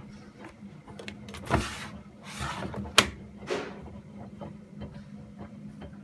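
Miele Softtronic front-loading washing machine running in its wash phase: a low steady hum with a few rushing swishes in the middle and one sharp click about three seconds in.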